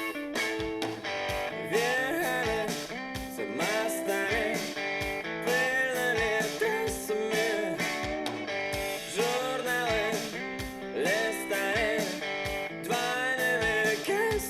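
Guitar-led rock music with a steady drum beat and bending, sliding melody lines, played through an Akkord 201 stereo and its loudspeakers and picked up by a camera's microphone.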